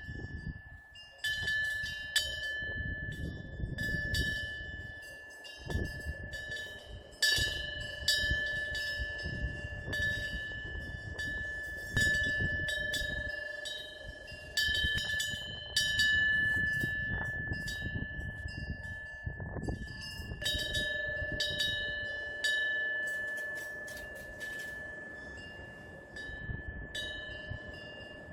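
Korean temple wind bell (pungyeong) struck over and over at irregular intervals by its wind-blown clapper, each strike ringing on at one clear, steady pitch, with a low rumbling noise underneath.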